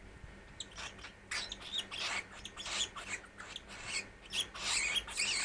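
Dwarf cockatiel chattering in a quick run of short, scratchy, high-pitched calls, starting about half a second in and growing louder toward the end. The bird is in a cranky mood.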